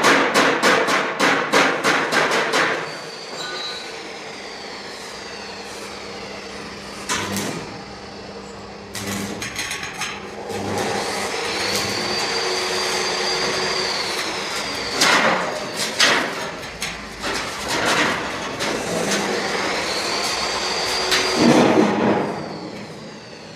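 Metalworking in a welding shop. It opens with a fast run of hammer blows on metal, then a steady hissing haze broken by scattered knocks. Twice a high whine rises, holds for a few seconds and falls away.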